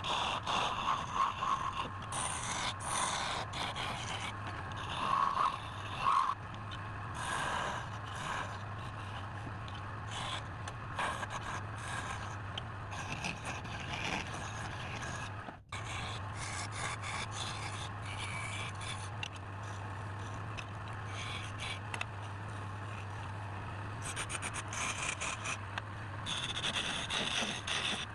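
Wood lathe motor humming steadily while a turning tool scrapes and cuts against the spinning wood, in uneven passes, with a brief break about halfway through.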